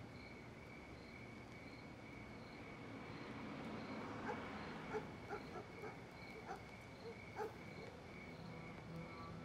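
Crickets chirping steadily, about two pulses a second, with a few faint short clicks and rustles in the middle.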